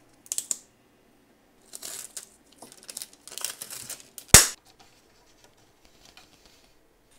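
Brown packing tape being peeled off glued plastic letters in several short rips, followed a little over four seconds in by one sharp loud click, the loudest sound.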